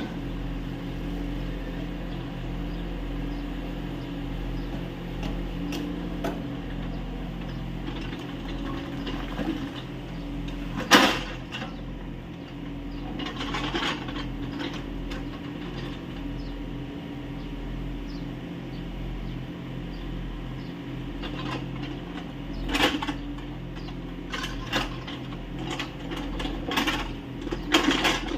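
Kubota U30 mini excavator's diesel engine running steadily while digging, with scattered sharp metallic clanks and knocks from the working bucket and arm, the loudest about eleven seconds in and a cluster near the end.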